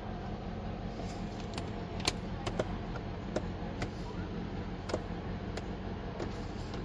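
An engine idling steadily, with several sharp, light clicks and taps scattered over it.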